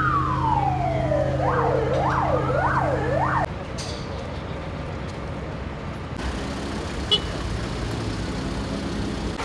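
An emergency vehicle siren falls in a long downward glide, then switches to fast up-and-down sweeps, over the steady drone of an engine running. Both cut off abruptly about three and a half seconds in, leaving even street noise with a single short click later on.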